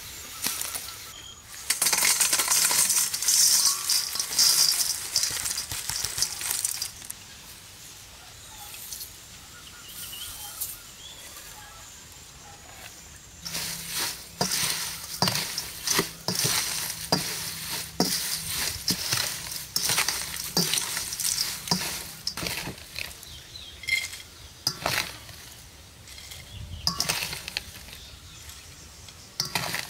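Crisp fried grasshoppers rattling in a stainless steel bowl as they are tossed and stirred with a plastic spatula that scrapes and clicks against the metal. A dense, loud rattle comes a couple of seconds in and lasts about five seconds. From about halfway on there is a long run of sharp clicks and scrapes.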